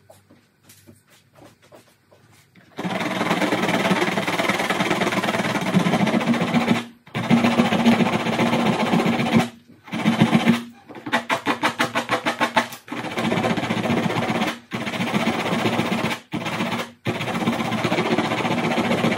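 Sandpaper rubbed rapidly back and forth over the welded seam of a polypropylene bucket, smoothing the bead of melted cable-tie plastic: a rough rasping in runs of fast strokes with short pauses between, starting about three seconds in after a few faint taps.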